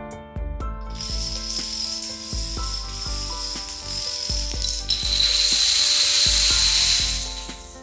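Hundreds of dominoes toppling in a chain reaction, a dense clattering rattle. It starts about a second in and gets heavier from about five seconds as the pyramid collapses, then dies away near the end. Background music plays underneath.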